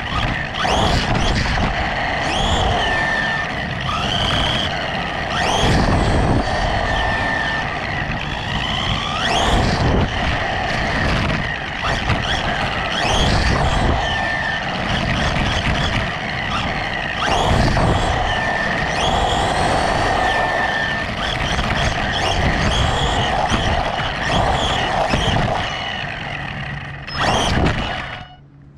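Small brushless RC truck running on asphalt, heard up close: the electric motor's whine rising and falling with the throttle over the rumble of tyres and drivetrain. The sound drops away sharply near the end.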